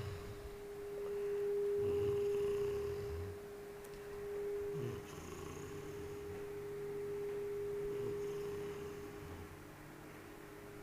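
A sleeping person snoring, two long snores a few seconds apart, over a steady hum.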